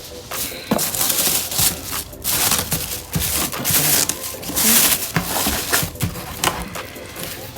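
Cardboard carton and packing material rustling and scraping in a series of rough bursts, with a few knocks, as a new microwave oven is worked out of its box.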